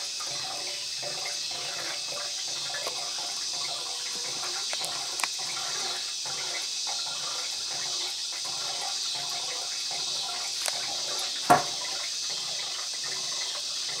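Refrigerant gurgling and hissing as it boils off in the evaporator of an old Borg Warner Norge refrigerator, a steady liquid bubbling. A single sharp click sounds late on.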